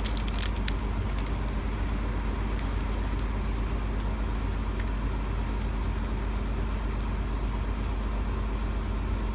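Engine of a railway work vehicle running steadily with an even drone, a few short clicks in the first second.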